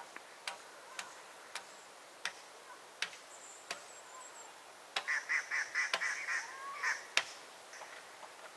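Sharp knocks, roughly one every half second to second, with a short run of rapid, chattering bird calls about five seconds in.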